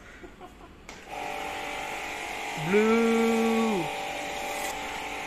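Foam-wash pressure sprayer starting suddenly about a second in and running steadily, a motor whine over the hiss of foam spraying onto the car. Around the middle a person's voice holds one long note for about a second over it.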